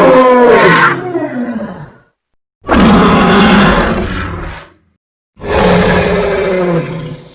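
Three dragon roar sound effects, each about two seconds long with short silences between. The first falls in pitch, the second is rougher and noisier, and the third holds a low, slowly falling tone.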